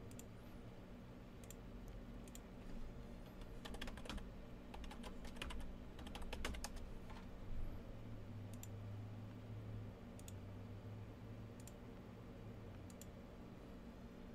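Computer keyboard typing: dense runs of keystrokes about four to seven seconds in, then single clicks every second or so, over a faint steady low hum.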